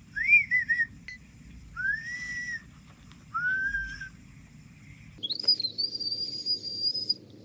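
Someone whistling: three short notes that slide up and down, then, after about five seconds, one long higher whistle that rises quickly and holds.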